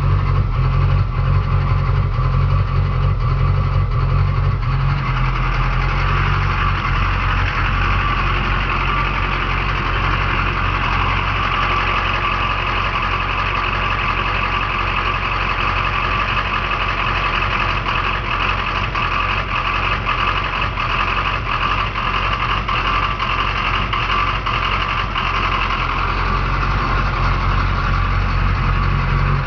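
Duramax V8 turbodiesel in a pickup truck idling roughly. The owner's question is whether a failing fuel pressure regulator is behind it. A brighter hiss joins the engine sound from about five seconds in and fades near the end.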